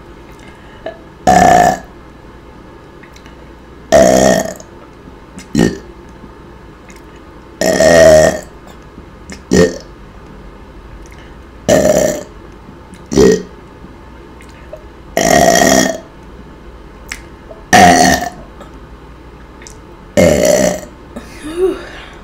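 A woman burping loudly again and again, a long burp every two to four seconds, several of them followed by a short one.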